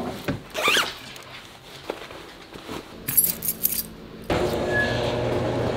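A brief swish, then a ring of keys jingling as it is picked up from a tray about three seconds in. Music starts near the end.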